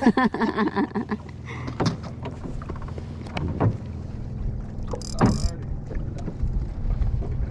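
Outrigger boat's engine running with a steady low hum, with a few light knocks from the boat and tackle.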